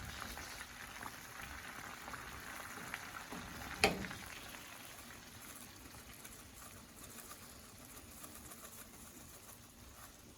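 Faint bubbling of a pot simmering on the stove, with a single sharp knock about four seconds in.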